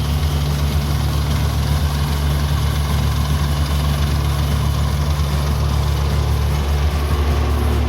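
Kubota combine harvester's diesel engine running steadily, a constant low engine drone.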